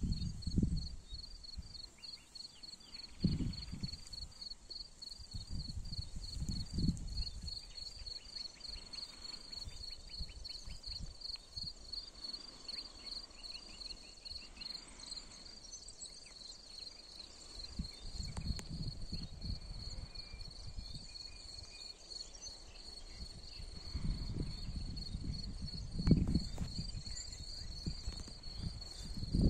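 An insect trilling steadily, a high note pulsing fast and evenly, with irregular low rumbles and thumps now and then.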